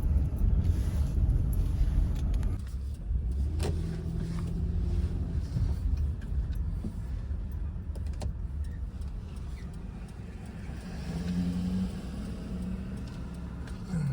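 Car driving slowly, heard from inside the cabin: a steady low engine and road rumble, with a low hum that comes and goes and a couple of sharp clicks.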